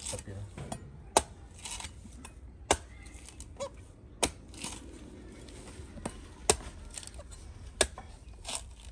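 Sharp cracks or chopping knocks, about six at uneven intervals of one to two seconds, with short rasping, tearing-like noises between them.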